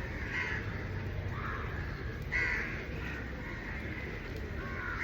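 Crows cawing: three calls about a second apart, the third the loudest, over a low steady background noise.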